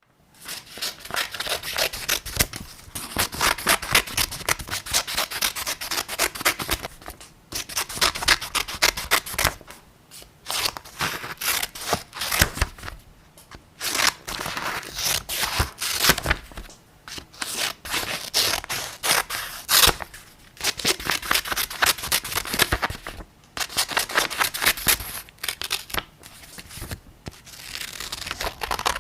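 Scissors cutting paper: rapid crisp snips in runs of a few seconds, broken by short pauses.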